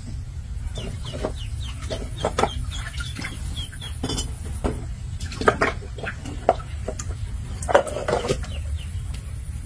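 Chickens clucking, with scattered sharp knocks and clatters as a wooden plank and a plastic basin are handled on bricks in shallow water; the loudest knocks come about five and a half and eight seconds in.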